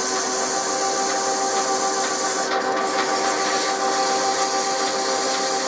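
Metal lathe running steadily with several steady gear and motor tones, under a continuous rasping hiss as rust is scoured off the pulley spinning in its chuck.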